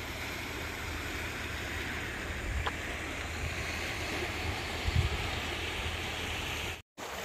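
Wind buffeting a phone microphone: an uneven low rumble with a stronger gust about five seconds in, over a steady hiss. The sound cuts out abruptly for a moment near the end.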